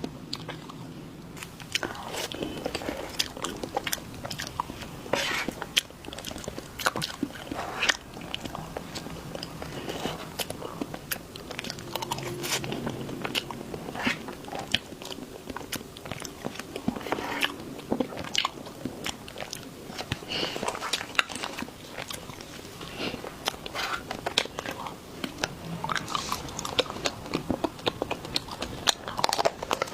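Close-miked eating of desserts: biting and chewing, with many sharp, irregular crunches and mouth clicks.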